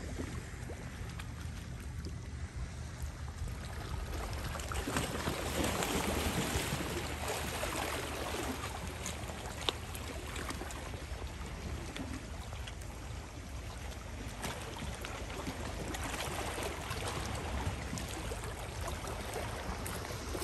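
Small sea waves lapping and washing at the shoreline, a steady rushing wash that swells and eases a couple of times.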